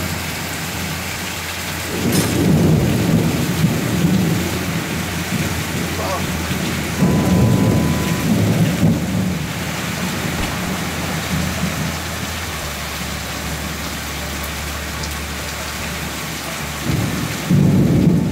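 Heavy rain falling steadily, with thunder rumbling three times: about two seconds in, about seven seconds in, and again near the end.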